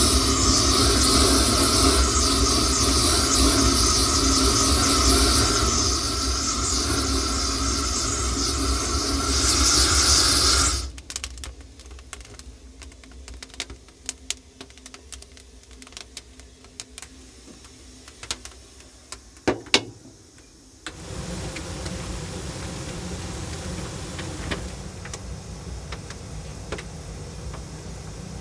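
A loud, steady rushing hiss over a low hum cuts off abruptly about eleven seconds in. Then a wood fire crackles and snaps in the firebox of an Orenstein & Koppel 0-4-0 steam locomotive, with sharp pops. A steadier low hum with faint ticks comes back near the end.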